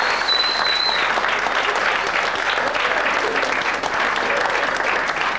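A room of people applauding with dense, sustained clapping, and a high whistle from someone in the crowd during the first second.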